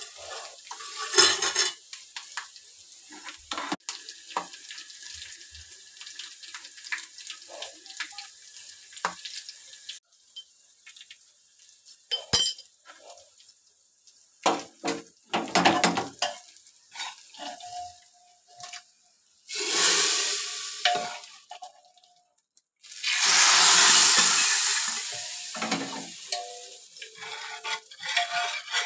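A tempering of chillies and spices frying in hot oil in a steel kadhai, with a steel spoon stirring and scraping the pan. Later come two loud bursts of sizzling, the second lasting about three seconds. Near the end, short ringing clinks come from a ladle stirring in a metal pressure cooker.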